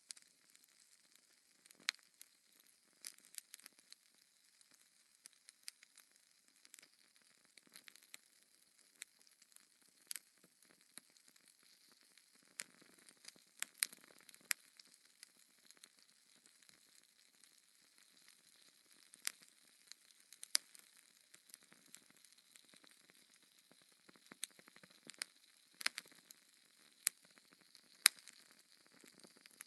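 Wood fire crackling in a fireplace: irregular sharp pops and snaps over a faint hiss, with one louder pop near the end.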